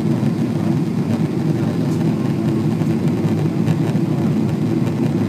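Steady roar of an airliner cabin, the jet engines and rushing airflow heard from inside the plane as it descends toward landing.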